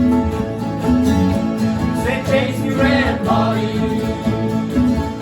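Bluegrass-style string band music, plucked guitar and banjo, with a voice singing from about two seconds in.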